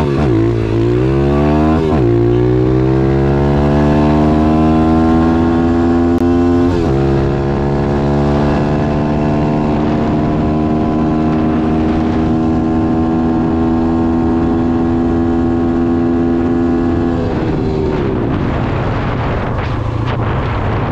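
Piranha YX140 pit-bike single-cylinder four-stroke engine at full throttle, its note climbing through the gears with upshifts about two and seven seconds in. In top gear it holds a high note that creeps slowly upward at top speed, then drops away about seventeen seconds in.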